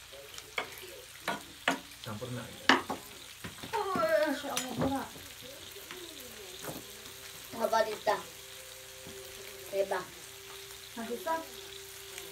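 Meat sizzling on a tabletop grill pan, with sharp clicks and taps of metal tongs and chopsticks against the pan and dishes. A few short voice-like hums or murmurs come through around the middle and again later.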